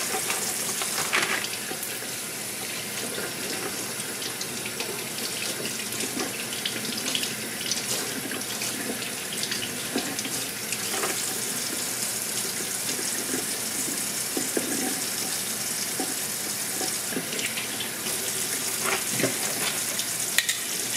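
Kitchen tap running steadily into a stainless-steel sink as pieces of saltfish are rinsed under the stream, with irregular splashes and light knocks as the fish is handled.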